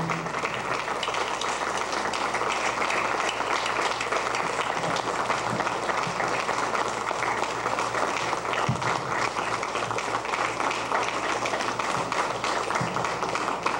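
Audience applauding steadily, starting just as the band's last chord stops at the very beginning.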